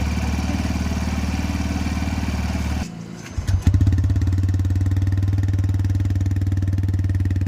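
TVS Raider 125's single-cylinder engine running steadily just after a cold start. About three seconds in it cuts out abruptly, then catches again after a brief gap and keeps running.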